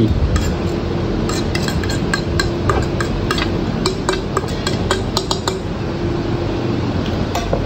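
A fork and plate clinking against a stainless steel mixing bowl as chopped chillies and herbs are scraped off the plate into it: a run of short, light clinks over a steady hum.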